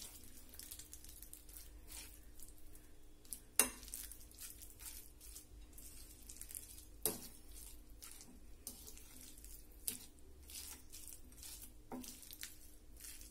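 A silicone spatula stirring a soft mixture of mashed banana and grated coconut in a ceramic bowl: faint scraping, with three light knocks of the spatula against the bowl.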